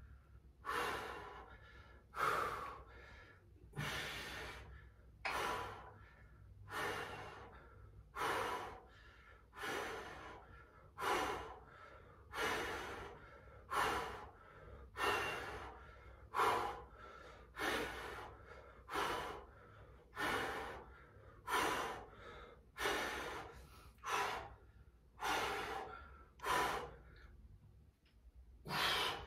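A man breathing hard and rhythmically from exertion, a noisy breath in and out roughly every second and a half, in time with repeated dumbbell front raises held in a horse-stance squat.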